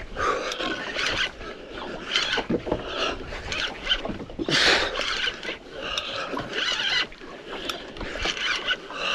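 Water slapping against a small boat's hull in irregular splashes, with a fishing reel being wound in against a hooked fish.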